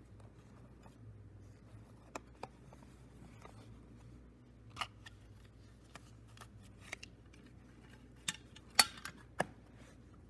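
Hard plastic cassette case and a BASF Chrome Maxima II cassette clicking and clacking as the case is opened and the tape taken out. The clicks are scattered, with the loudest cluster near the end.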